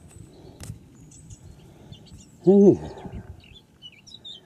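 Small birds chirping faintly in the background of an open field. About two and a half seconds in, a man gives a short hummed "hmm" as he looks something over. A single faint click comes just under a second in.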